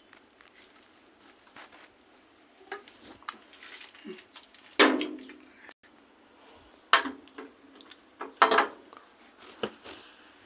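A few sharp knocks and clatters of hard objects striking, with smaller taps between them; the loudest comes about halfway through, and two more follow a couple of seconds apart.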